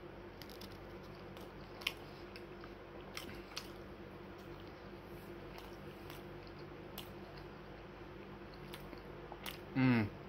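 A person chewing food with the mouth closed, with small wet mouth clicks and smacks scattered throughout over a faint steady hum. A short voiced sound from the eater comes just before the end.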